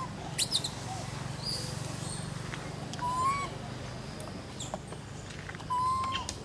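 Baby macaque giving short, level-pitched coo calls three times, about three seconds apart, with small birds chirping high above and a steady low hum behind.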